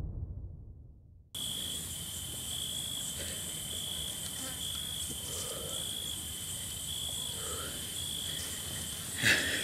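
Crickets chirping at night: a high chirp repeating a little more than once a second over a steady higher insect trill. This comes in after background music fades out in the first second, and a short louder noise comes near the end.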